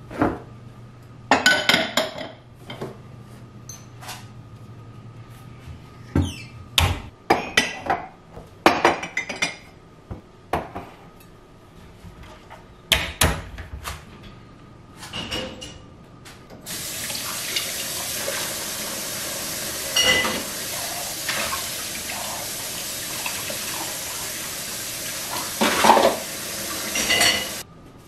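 Dishes and utensils clattering and clinking, then, from a little over halfway in, a kitchen tap running into the sink for about ten seconds with a few dish clinks under the water, until it is shut off.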